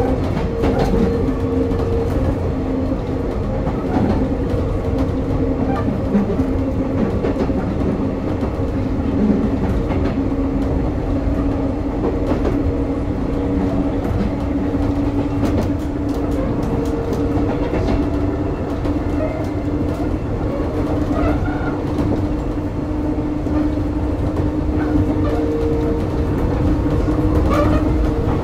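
Sotetsu New 7000 series electric train with Hitachi early GTO-VVVF control running, heard from on board: a steady hum holding two low tones over the rumble of the wheels, with occasional clicks.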